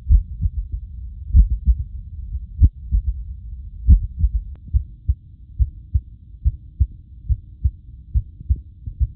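Recorded heartbeat of a heart with mitral stenosis, the beats uneven with a murmur between them. About five seconds in it gives way to a normal heartbeat: regular lub-dub pairs at roughly 70 a minute.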